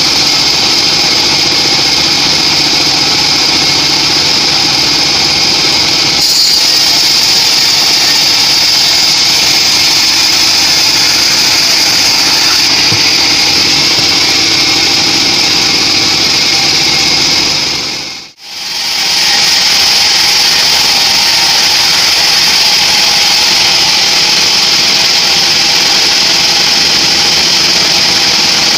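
Homemade band sawmill running steadily, its blade cutting lengthwise through a teak log with a loud, steady high-pitched whine over machine noise. The sound drops out sharply for a moment about two-thirds through and comes straight back.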